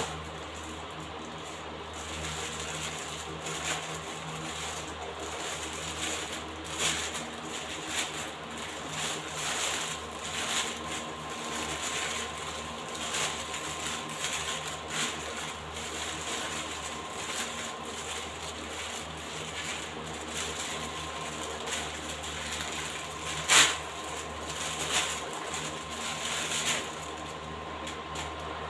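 Arc welding with an Ibell welding machine: the arc crackles and sizzles with irregular pops, struck about two seconds in and broken off near the end, with one sharp loud crack near the end. A steady hum runs underneath.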